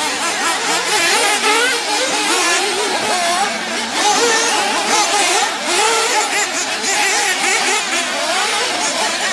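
Several radio-controlled off-road racing buggies running together, their small nitro engines revving up and down over one another in a constant, rising and falling buzz.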